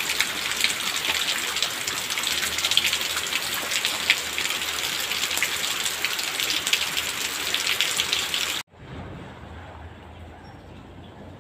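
Rain falling outdoors, a dense steady hiss of drops pattering on the ground and foliage. It cuts off abruptly about eight and a half seconds in, leaving a much quieter low background rumble.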